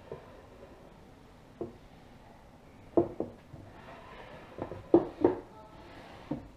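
Plywood slide table of a home-built CNC mill base pushed back and forth on steel smooth rods, giving a series of sharp wooden knocks as it shifts and bumps. The knocks come singly and in quick pairs and threes, the loudest about three and five seconds in.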